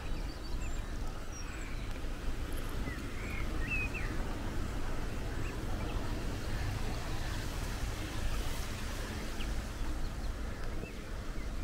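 Outdoor wind noise rumbling on the microphone, with a few short, faint bird chirps mostly in the first few seconds.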